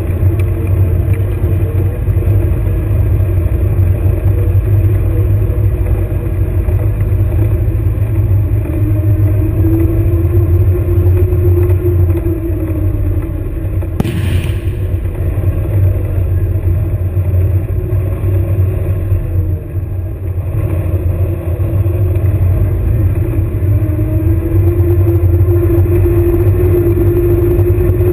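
The airsoft combat vehicle's engine running as it drives, heard close from on board, its pitch rising briefly about a third of the way in and again near the end. A single sharp bang about halfway through.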